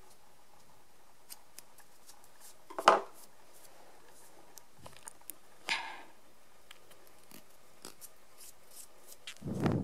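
Quiet room with a few short, faint noises: one about three seconds in, one just before six seconds, and a lower one at the end, with some faint clicks between.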